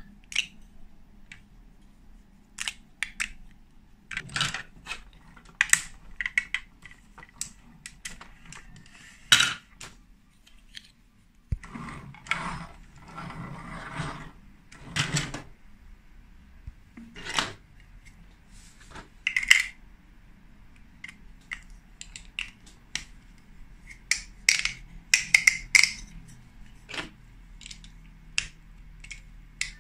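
Hard plastic Lego Duplo pieces clicking, knocking and clattering as they are handled, with a longer rattling scrape around the middle.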